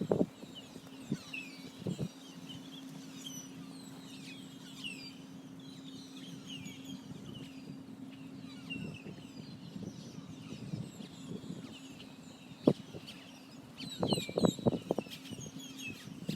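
Chorus of many small birds chirping at dusk: short high chirps overlapping without pause, over a steady low hum. A few low thumps stand out, with a cluster of louder low sounds near the end.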